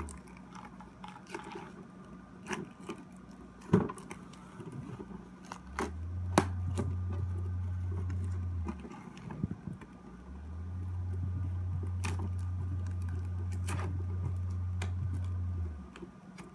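Scattered small clicks and taps of hands handling a collector's tin and its packaging. A low steady hum comes on twice, for about three seconds and then about five, and is the loudest sound while it lasts.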